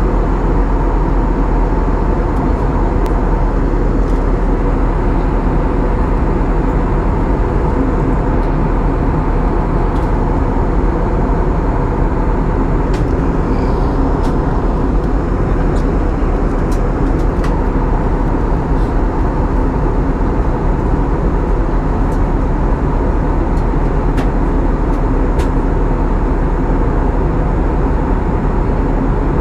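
Steady cabin noise of an Airbus A320 jet airliner in cruise, heard from a window seat beside the engine: an even rush of engine and airflow with a faint steady hum.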